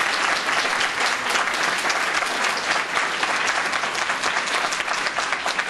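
Audience applauding: dense, steady clapping from a lecture hall crowd at the end of a talk.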